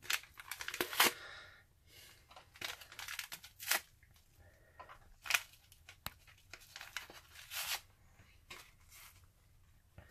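A tea bag's wrapper being torn open and crinkled by hand, in several short bursts of ripping and rustling.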